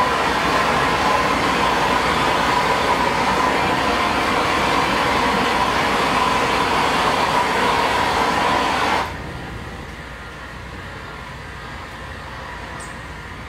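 Heat gun blowing steadily with a faint motor whine, heating window tint film to shrink it onto a car's back window. About nine seconds in the sound drops abruptly to a quieter steady hiss.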